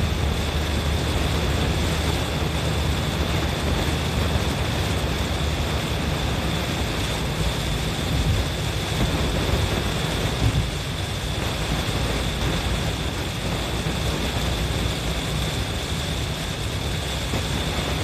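Steady road noise inside a car driving fast in heavy rain: tyres hissing on the flooded road surface and rain beating on the windshield and roof over a low cabin rumble.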